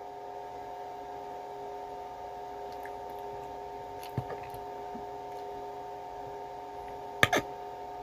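Steady electrical hum in a small room, with quiet eating noises: a couple of soft clicks about four seconds in and one short, sharper knock near the end.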